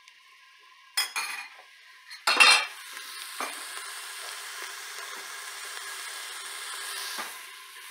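A spatula clatters and scrapes against a stainless steel pot, loudest about a second in and again about two and a half seconds in. Then chopped onions sizzle steadily as they sauté in butter and oil.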